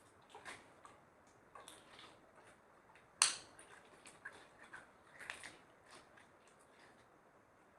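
Slime being worked by hand: scattered small sticky clicks and crackles, with one louder, sharp pop a little over three seconds in.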